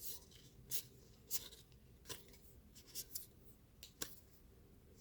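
Baseball trading cards being slid and flipped one after another through a pack, a string of faint short swishes and rubs at an uneven pace.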